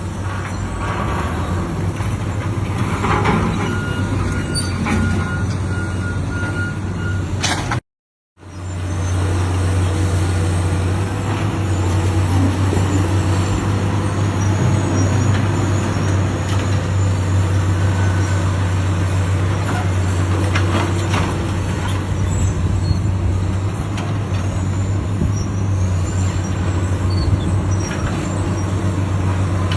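Heavy demolition machinery with its engine running steadily, with a few scattered knocks and clatter. The sound cuts out completely for a moment about eight seconds in, then resumes.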